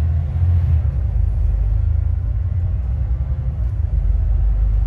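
Alexander Dennis Enviro400 MMC double-decker bus under way, heard from inside: a steady low engine and road rumble. Over it is a faint high whine that falls slightly in pitch, which the uploader takes for a bad alternator.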